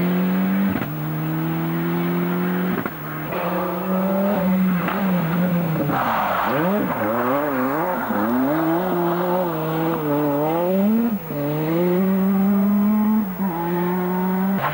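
Rally car engines at high revs on a closed road stage, held steady at first, then the pitch swinging up and down with rapid throttle lifts and gear changes from about six seconds in, with a hiss of tyre noise over it.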